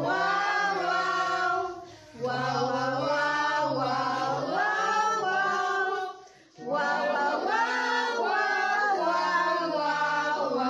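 A group of voices singing a tune in phrases over steady low held notes, breaking off briefly twice.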